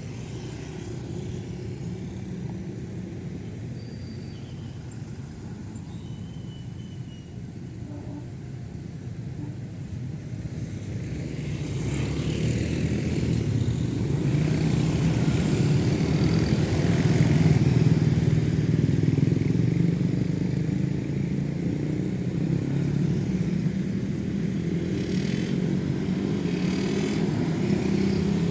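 Road traffic passing close by: motorcycle and car engines and tyre noise. It grows louder from about ten seconds in as vehicles draw near, and stays loud to the end.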